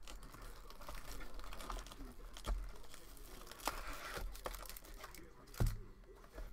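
Cardboard Bowman's Best trading-card box being pulled out and handled: rustling and scraping of cardboard, with three sharp knocks, the loudest about five and a half seconds in.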